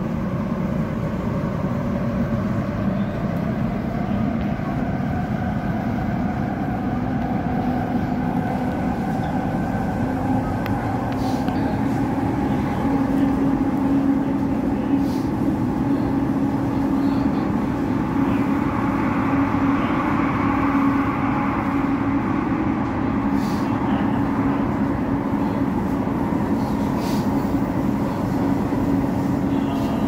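Class 345 Elizabeth line train running in service, heard from on board: a steady rumble with an electric traction whine that rises in pitch over the first dozen seconds as the train gathers speed, then holds steady. A few faint clicks sound here and there.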